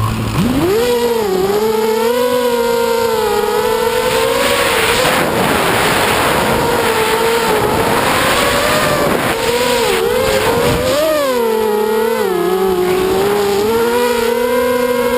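Quadcopter's four brushless motors (RCX 2205 2350kv on a 4S battery) whining with propeller noise, picked up by the camera on board. The pitch sweeps up sharply as the motors spool up just after the start, then rises and falls with the throttle.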